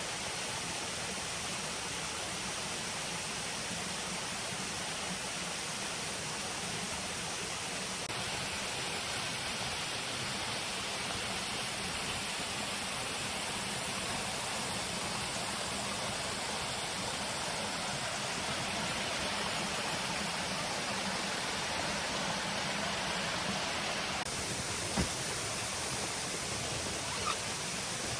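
Waterfall crashing steadily, a constant rushing roar of falling water, with a single brief knock near the end.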